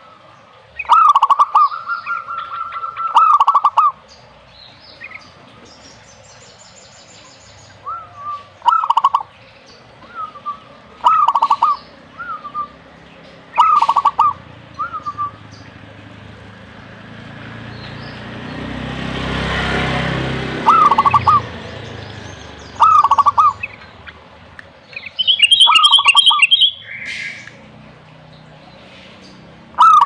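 Zebra dove cooing in loud, short stuttering calls every few seconds, the first one drawn out for about two seconds. In the middle a rumbling noise swells and then fades.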